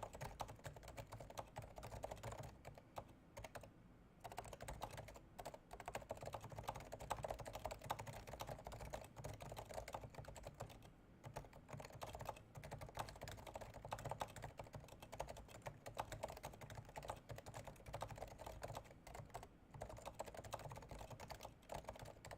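Fast, continuous typing on a Topre Realforce 108U keyboard with uniform 45 g springs, silenced and lubed, giving soft, muted keystrokes, with a few brief pauses between bursts.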